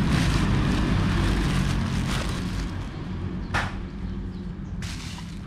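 Plastic bubble wrap crinkling and crackling as a baitcasting reel is unwrapped from it. The crinkling is dense at first and dies down after a couple of seconds, with two sharp crackles near the end.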